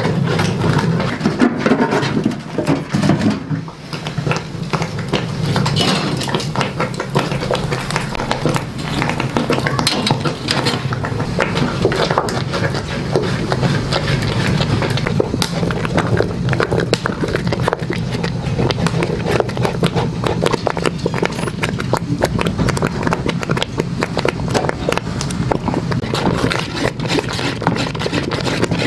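Long wooden stick stirring thick mull dough in an aluminium cooking pot: repeated knocks and scrapes of the stick against the pot.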